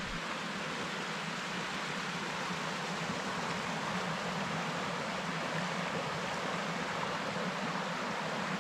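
Shallow stream flowing over stones, a steady rushing and babbling of water.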